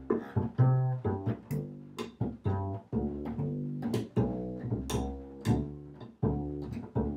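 Solo bass playing a tango: a steady run of plucked low notes, each struck sharply and dying away.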